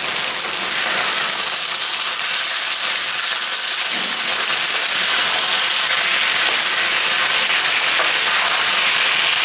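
Marinated chicken thigh pieces sizzling in hot oil in a wok on high heat, a steady hiss as the pieces are turned over with a spatula. The sizzle grows a little louder about halfway through.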